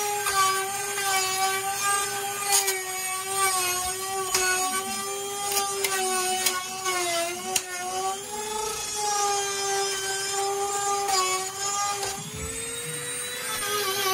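Corded high-speed rotary tool grinding on a rusty steel tailgate flange: a steady motor whine that dips and wavers as the bit bears into the metal, with a few sharp ticks. Near the end the whine rises in pitch as the load comes off.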